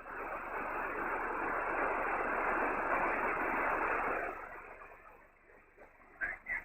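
Shortwave SSB transceiver on the 15-metre band giving out a steady hiss of band noise, cut off above the narrow voice passband, that dies down after about four seconds to a low background, with faint stations returning near the end.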